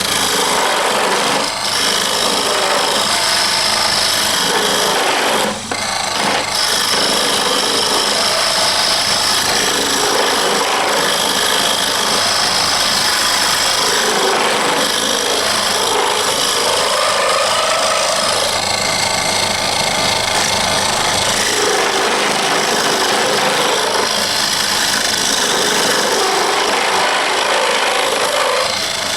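A wood lathe running with a tool cutting into the spinning wooden knife-handle blank: a steady motor hum under continuous scraping that swells and fades as the tool is worked along the wood.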